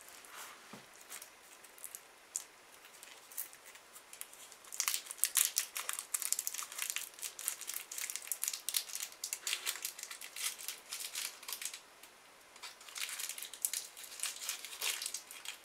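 Wrapper of a small roll of candy tablets crinkling as it is picked open by hand: intermittent crackling, starting about five seconds in, with a short pause a little before the end.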